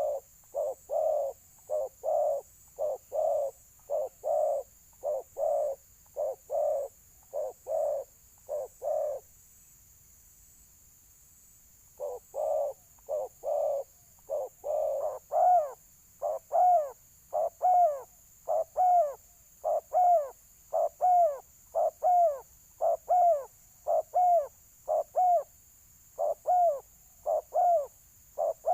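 Dove giving a rapid, repeated series of short coos, about one and a half a second: the aggressive fighting call of a balam dove answering a decoy bird. The calls break off for about three seconds near the middle, then resume and grow louder.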